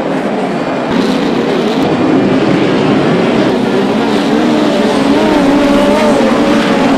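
Midget race car engines running on a dirt oval, their pitch wavering up and down as the cars circle. The sound grows louder about a second in.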